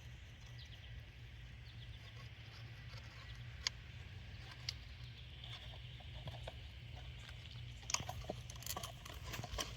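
Faint handling sounds of a plastic oil filter housing cap while a new rubber O-ring is worked into its groove: a few scattered sharp clicks and ticks, more of them near the end, over a low steady background rumble.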